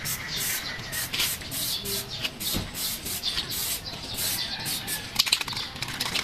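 Rapid back-and-forth abrasive rubbing on a mountain bike part, a few strokes a second, with a short run of sharp clicks about five seconds in.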